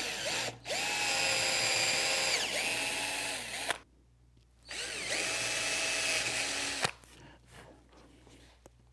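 Cordless drill with a small twist bit boring pilot holes, in two runs: the first about three seconds, its motor whine falling in pitch as it slows, the second about two seconds, stopping sharply.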